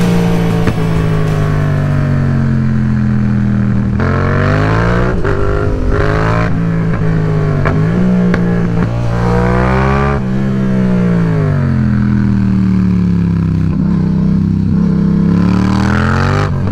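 Yamaha MT-07 motorcycle's 689 cc parallel-twin engine under way. Its note holds steady at first, then rises and falls again and again as the rider opens and closes the throttle through the gears.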